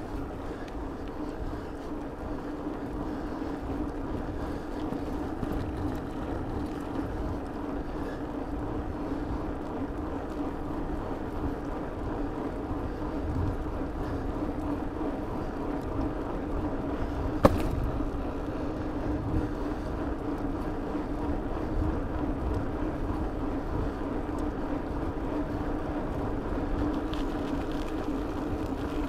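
Bicycle rolling along an asphalt road: steady tyre hum and wind on the microphone, with one sharp click about seventeen seconds in.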